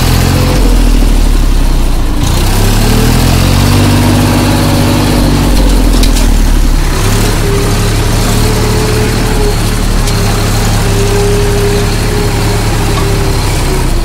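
Massey Ferguson tractor's diesel engine running under way, heard from the driver's seat. Its note rises and then falls back between about two and seven seconds in, then holds steady.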